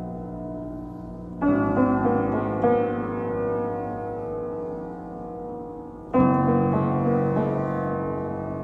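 Slow instrumental piano music: sustained chords, with two loud chords struck about a second and a half in and again about six seconds in, each ringing on and fading.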